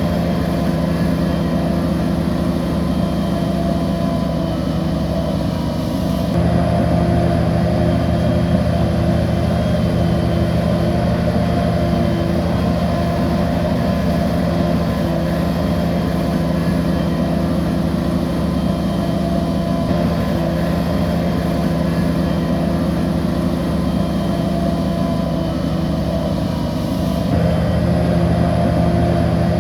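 A bulldozer's diesel engine runs steadily under load. Its note shifts about six seconds in and again near the end.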